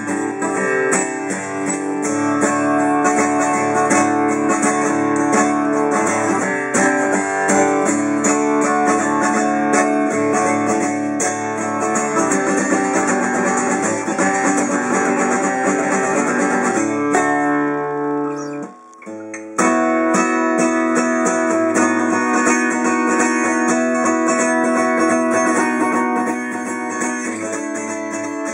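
Sigma DR-7, an early-1970s Japanese-made dreadnought acoustic guitar, being played with a mix of strummed chords and picked notes, with a brief break about two-thirds of the way through. Its high E string is not seated correctly in the nut, which the player says makes it vibrate.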